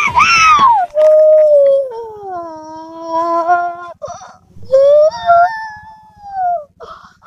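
Two long, drawn-out howls. The first slides slowly downward, and the second rises and then falls away.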